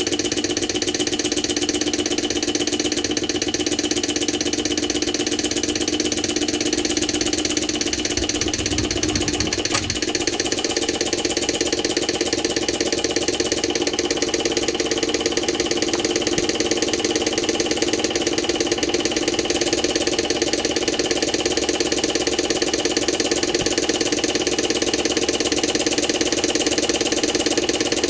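Small Moriya-type Stirling hot-air engine running steadily on its spirit burner, its crank, flywheels and linkages making a fast, even mechanical beat. One sharp click about ten seconds in.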